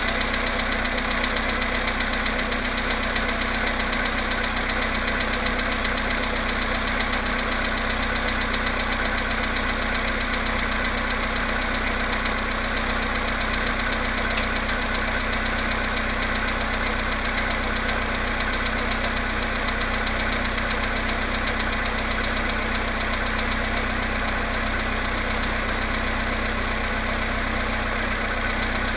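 Volkswagen Polo Sedan petrol engine idling cold, with a steady, rapid knock running with the engine: the knock this engine makes after standing overnight in near-freezing weather.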